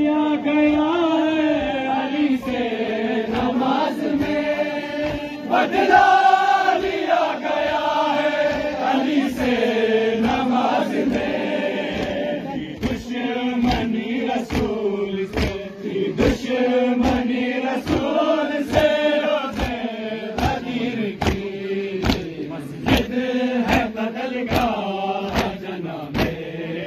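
Men chanting a Shia mourning lament (noha) in a slow, repeating melody, over steady chest-beating (matam) slaps about twice a second.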